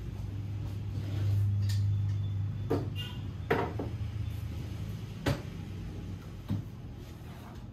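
Desk items being handled and set down on a hard desktop: about five light knocks and a short clink, over a low steady hum.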